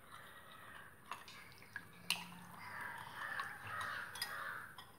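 Water with green chillies being stirred by hand in a glass bowl: faint swishing with a few light clicks.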